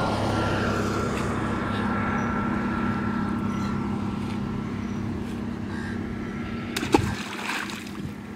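A steady engine hum that slowly fades and drops away about seven seconds in, where a single sharp knock is the loudest sound, followed by a short stretch of rough noise.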